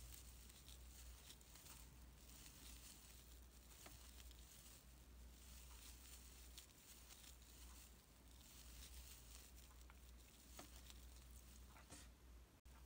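Faint rustling of a crochet hook pulling glittery acrylic scrubber yarn through double crochet stitches, with a few soft ticks, barely above near silence.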